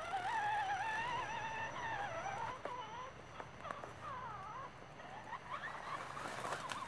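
Electric motor and drivetrain whine of an Axial SCX10 RC Jeep Rubicon crawler climbing a dirt slope. The pitch wavers with the throttle, then after about two and a half seconds breaks into short rising and falling bursts, with a few light clicks.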